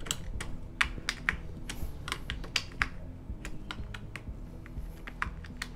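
Irregular small clicks and light scraping, a few a second, from working at the rust-spotted metal HDMI port of a GTX 970 graphics card to clean it.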